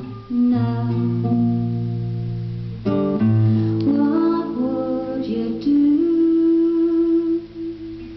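Acoustic guitar strummed in slow chords that are left to ring, a new chord about every two and a half seconds, the sound dying away near the end.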